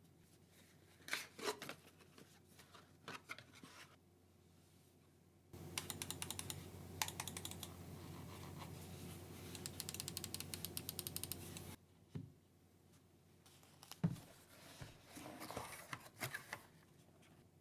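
ASUS ROG keyboard keys typed in a quick, steady run of clicks through the middle. Before and after the run come scattered clicks and rustles of the keyboard and mouse being handled.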